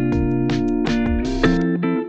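Background music: plucked and strummed guitar with bass notes, a steady melodic track.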